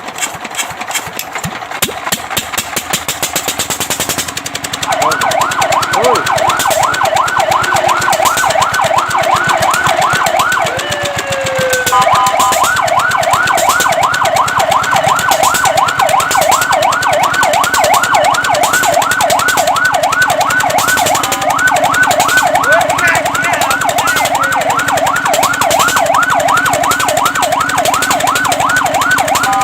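Fire truck siren in a fast yelp, its pitch rising and falling several times a second, starting about five seconds in after a rapid mechanical pulsing. The yelp breaks briefly with a slower glide near the middle, then runs on.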